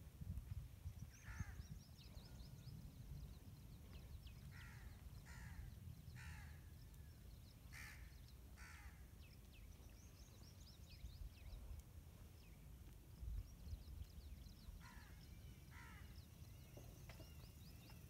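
Crows cawing, about eight harsh caws in two spells, faint, with small birds chirping high in the background and a low rumble underneath.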